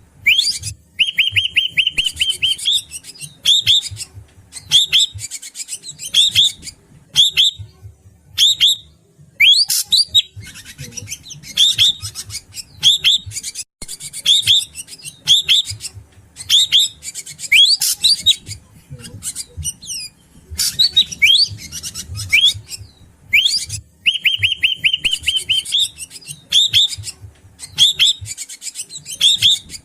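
Srigunting batu, the greater racket-tailed drongo, calling continuously: loud, sharp whistled notes that rise and fall, repeated in quick phrases, with a fast rattling run of notes about a second in and again a little past the middle. It is a recorded lure call used to draw wild drongos in.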